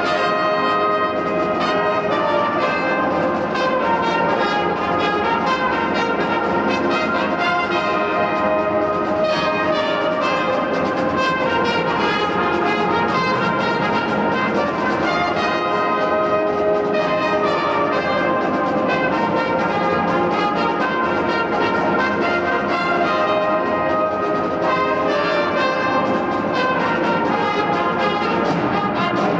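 Brass and reed band playing a piece together: trumpets, trombones, saxophones and a sousaphone holding sustained, changing chords at a steady, full level.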